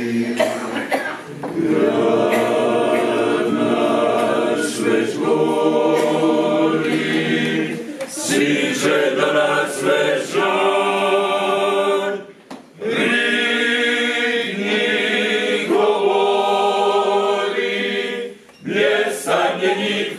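Male klapa group singing a cappella in close harmony, holding long full chords, with two short breaks between phrases, about twelve seconds in and near the end.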